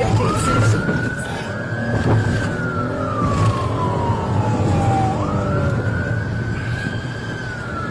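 Police car siren wailing: a single tone that slowly rises and falls, twice, over a steady low engine and road drone.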